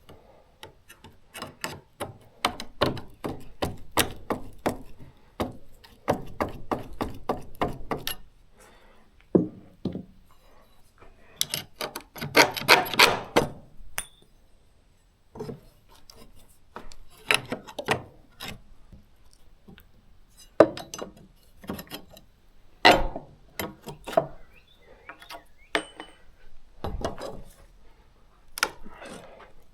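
Hand work with tools on wood and metal: runs of quick clicks and knocks with clinking and scraping, stopping and starting.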